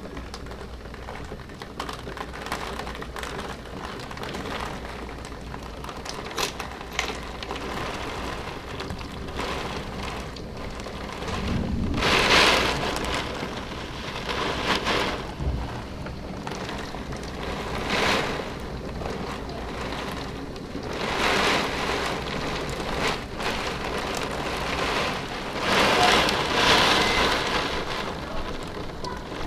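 Heavy thunderstorm rain driven by gusting wind against a window, coming in loud surges, the strongest about twelve seconds in and again near the end.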